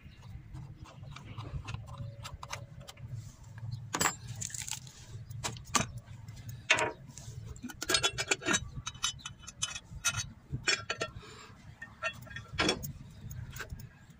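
Short metallic clinks and rattles as the bolts on a diesel engine's individual rocker cover are loosened with a hex key and the cover is worked free of the cylinder head. The clinks come irregularly throughout, with a low steady hum underneath.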